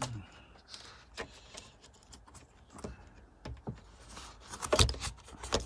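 Small plastic clicks and rattles of fingers working a car wiring connector, pressing in its locking clip and pulling the two halves apart, with a louder cluster of clicks near the end.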